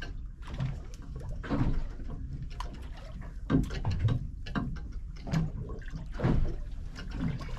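Water slapping and splashing irregularly against the hull of a small fishing boat, in uneven bursts about once a second over a low steady hum.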